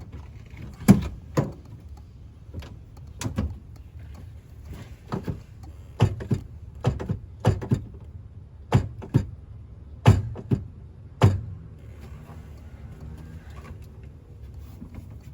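Clutch pedal being pumped by hand, giving sharp knocks, often in pairs, about a dozen over ten seconds. The clutch master cylinder is dead, so the pumping builds no pressure at the slave cylinder.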